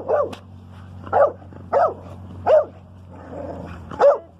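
Dog barking repeatedly, about six short barks spaced irregularly, over a steady low hum.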